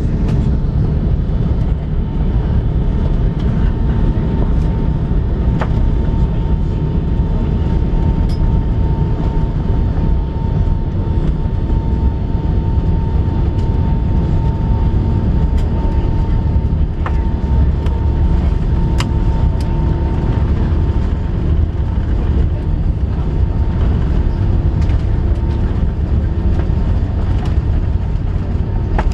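Cabin noise inside an Airbus A380: a steady low rumble from the engines and airframe. A thin mid-pitched tone holds for about the first twenty seconds, and a few light clicks are scattered through it.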